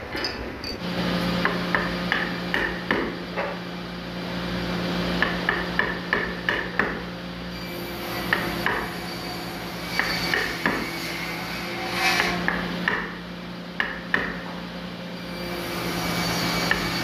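Wooden mallet striking a wood-handled chisel cutting a mortise in hardwood: a run of sharp, irregular knocks, at times several a second. A steady low hum runs underneath from about a second in.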